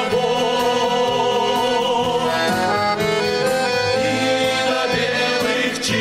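Men's vocal group singing a Christian song in harmony, with instrumental accompaniment and held chords.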